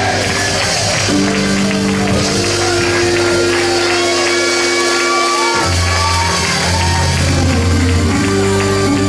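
Organ holding sustained chords, the bass shifting to a new chord a little past halfway, while the congregation shouts and sings in praise.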